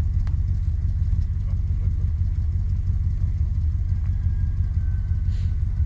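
Pickup truck engine idling: a steady low rumble.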